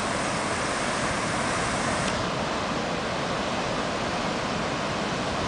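Heavy ocean surf breaking over a rocky lava reef: a steady, unbroken rush of churning white water.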